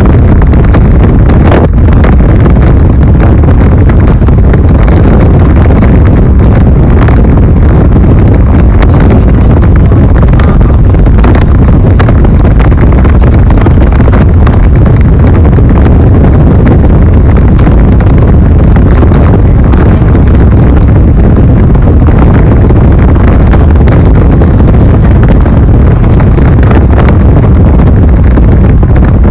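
Steady, loud, low rumble of wind and road noise inside a car travelling at highway speed, with a single brief click about two seconds in.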